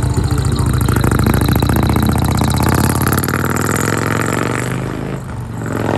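An engine running steadily, dipping briefly about five seconds in.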